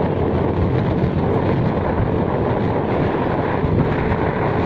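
Steady rumble of a moving vehicle with road noise, unbroken and even in level.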